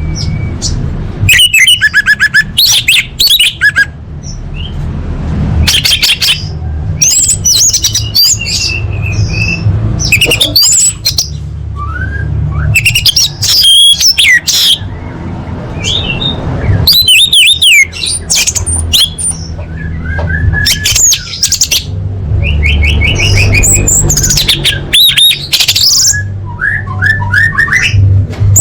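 Orange-headed thrush singing: loud, varied phrases of quick whistles and trills, one after another with short pauses between, over a steady low hum.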